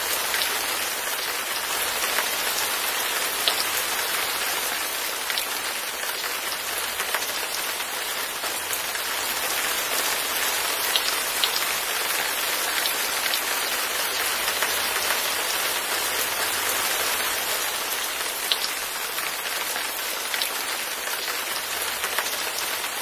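Steady rain falling: a dense, even hiss with an occasional single drop ticking through it.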